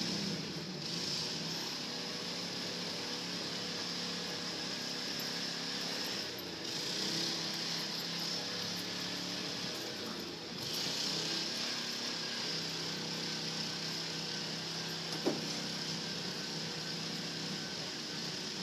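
Steady outdoor background hum and hiss with a faint mechanical drone, with one brief click about fifteen seconds in.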